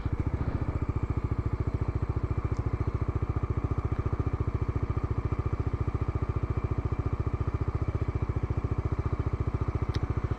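Bajaj Dominar 400's single-cylinder engine idling, an even, rapid beat of exhaust pulses that holds steady throughout.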